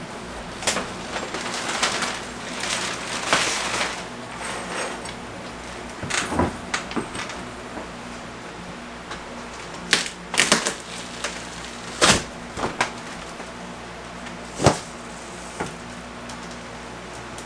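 Drywall panels being pried and torn off mobile home wall studs: irregular scraping, cracking and clicking, with a few sharp knocks in the second half, over a steady low hum.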